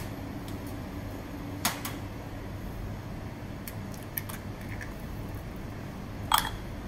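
A raw egg being cracked into a small glass bowl: a few sharp clicks and taps of shell on glass, the loudest near the end with a brief glassy ring. A steady low hum runs underneath.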